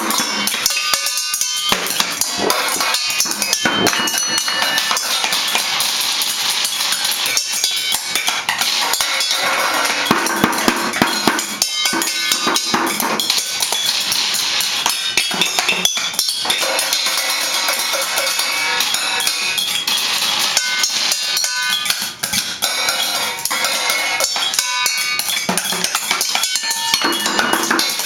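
Children banging on a drum kit: a dense, irregular clatter of drum and cymbal strikes, more noise-making than a steady beat.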